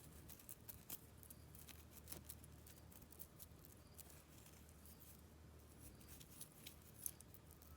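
Faint, scattered clicks of a tangled costume-jewelry bracelet being worked loose by hand, over a low steady room hum.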